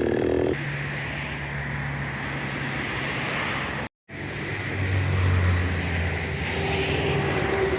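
Two-stroke chainsaw's full-throttle run cuts off about half a second in as the throttle is released, and the saw drops to a low idle, with wind noise on the microphone. The sound breaks off completely for a moment about four seconds in, then the idle carries on.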